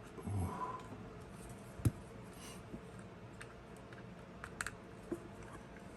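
Small plastic clicks and taps from an action figure's joints and parts being handled and posed, with one sharp knock about two seconds in.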